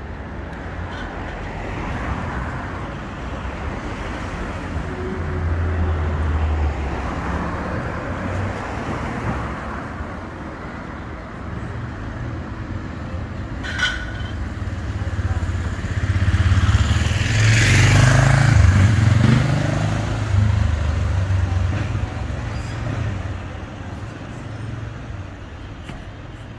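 Street traffic rumble as a Bombardier Flexity 2 tram approaches on street-running track behind a car. The sound swells to its loudest a little past halfway as vehicles pass close, then eases off. There is a single sharp click about two-thirds of the way through the first half.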